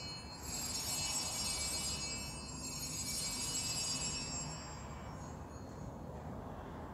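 Small altar bells (sanctus bells) rung at the elevation of the chalice after the words of institution: bright, high ringing struck a couple of times, then fading away.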